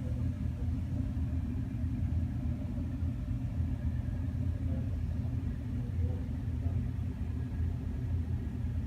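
Steady low rumble of mechanical-room equipment running, even and unchanging throughout.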